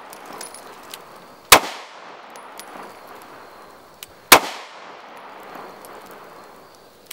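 Two shots from a SCCY DVG-1 9mm striker-fired pistol, loaded with Fiocchi 115-grain FMJ, about three seconds apart. Each shot is followed by a short echo, and a few faint clicks fall between them.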